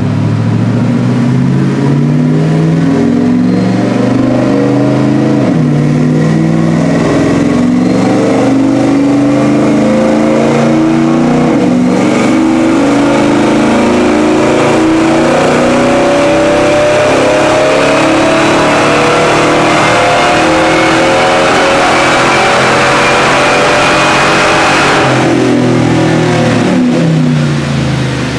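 Whipple-supercharged 5.4-litre V8 of a 2004 Ford Lightning running a long wide-open-throttle pull on a chassis dyno through a Borla exhaust. The revs climb steadily for about 25 seconds with a high whine rising alongside, then the throttle closes and the revs fall away near the end.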